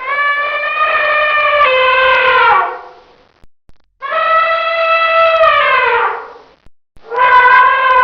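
Elephant trumpeting: long calls of about two and a half seconds each, holding a steady pitch and then sliding down as they fade. Two full calls, with a third starting about seven seconds in.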